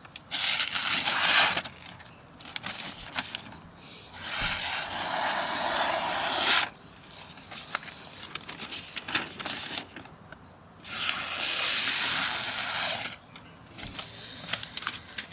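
Newspaper being sliced with the D2 steel blade of a Lionsteel SR-1 folding knife, freshly stropped on paste, while the paper rustles and crinkles in the hand. There are three long slicing hisses of a second or two each, about a second in, about four seconds in, and near eleven seconds. The easy cutting shows how sharp the stropped edge is.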